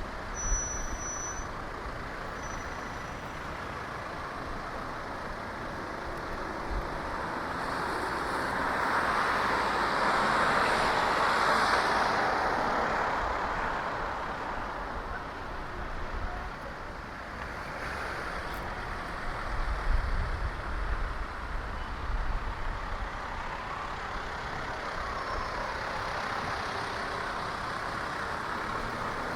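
Road traffic heard from a moving bicycle: a passing vehicle, likely a truck or bus, swells up to its loudest about ten seconds in and fades away. A steady road noise runs underneath, with low rumbles near the start and again around twenty seconds in.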